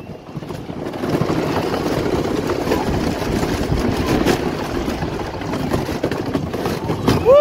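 Wooden roller coaster train running along its wooden track, a steady rumble of wheels that grows louder about a second in. Near the end a rider starts a rising whoop.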